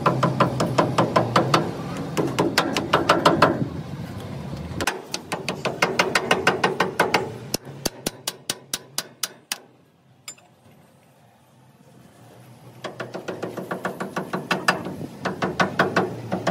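A small hammer taps rapidly and evenly on leather stretched over a truck hydraulic jack's steel cylinder end, shaping the new leather seal. The taps come in runs of a few seconds, slow and thin out about nine seconds in, stop for about three seconds, then start again.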